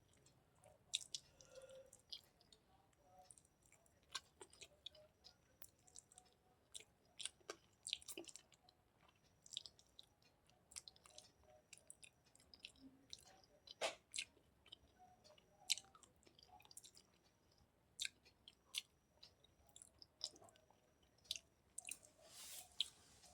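Close-miked eating sounds: a person chewing food, with many small, irregular mouth clicks and smacks, faint throughout.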